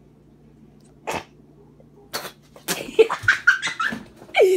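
A boy's non-speech vocal noises as he tries the seasoned green bean: one sharp cough-like burst about a second in, then a rapid run of coughing and sputtering sounds in the last half.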